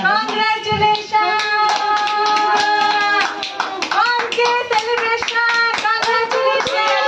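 A group of women singing a celebration song together while clapping their hands in a steady rhythm.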